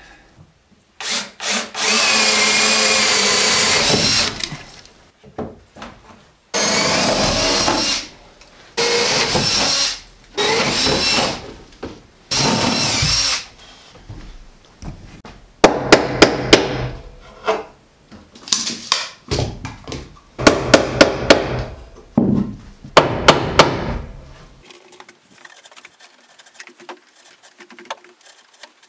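Power drill running in several separate bursts of one to three seconds each, followed by sharp knocks in quick runs of four or five.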